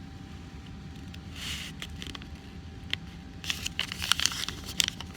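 A sheet of origami paper being folded in half and creased by hand: a soft rustle about a second and a half in, then a run of sharp crinkles and crackles near the end as the fold is pressed down. A faint steady hum lies underneath.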